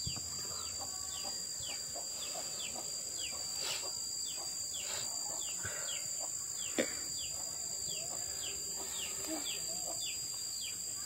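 Steady high-pitched insect drone, with a bird giving short falling chirps about twice a second. One sharp click comes about seven seconds in.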